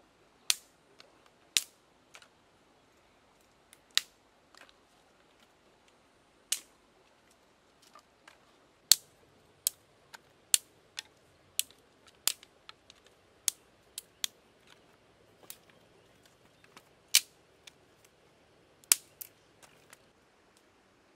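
Dry sticks snapping and clacking against river stones as they are broken and moved by hand: a string of about twenty short, sharp cracks at irregular intervals, the loudest about nine seconds in.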